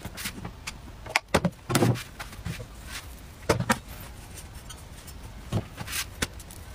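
Knocks and clatters from an electric dip-style crepe maker being handled: its plastic body is dipped into a bowl of batter and set back down on the table. The loudest knocks come about one to two seconds in and again around three and a half seconds.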